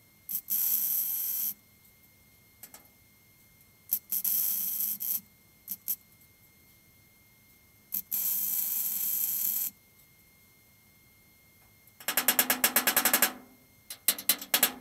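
MIG welder laying spot welds on a steel repair panel: three bursts of arc, each a second or so long, about four seconds apart. Near the end comes a quick run of about a dozen rapid strokes of a wire brush on the steel, then a few more.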